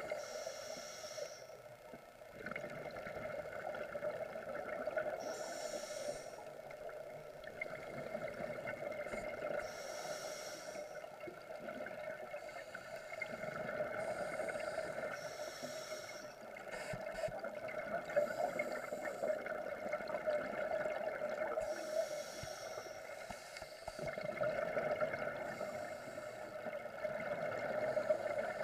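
Underwater scuba ambience: a steady hum with a diver's exhaled regulator bubbles rushing out in short bursts about every four to five seconds.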